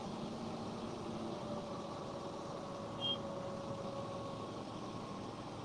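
Steady background noise with an engine running, and a short high chirp about three seconds in.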